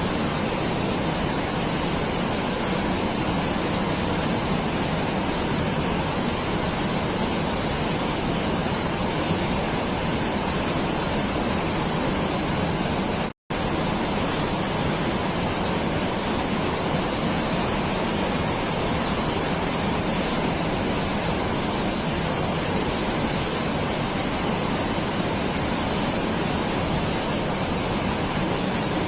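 Steady rushing water, an even roar with no variation, that cuts out for an instant about halfway through.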